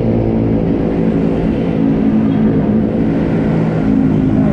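A vehicle engine running steadily at a constant speed: a loud, even, low drone that holds one pitch.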